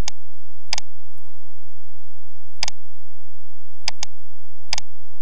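Computer mouse button clicks, five of them unevenly spaced, each a quick double tick of press and release, over a steady low hum.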